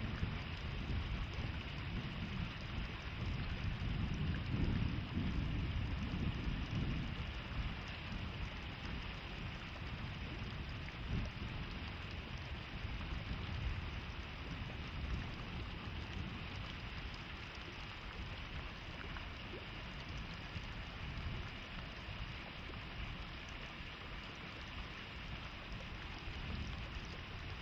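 Distant train running across open country: a steady rumbling hiss, heaviest in the first several seconds and then slowly fading.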